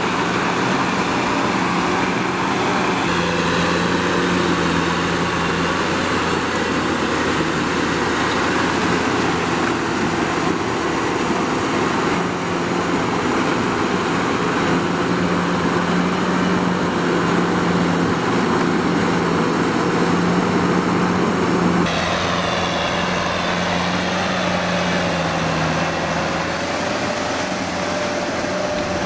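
Kubota M6040SU tractor's four-cylinder diesel engine running steadily under load while its rear rotary tiller churns through deep, wet mud. The sound changes abruptly about three-quarters of the way through.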